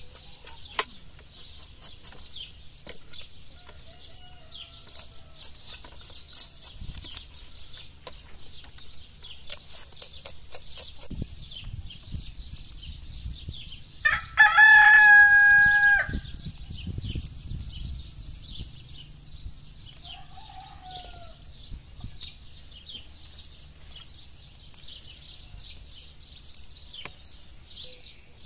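A rooster crows once, loudly, for about two seconds about halfway through. Around it are small bird chirps and light clicking.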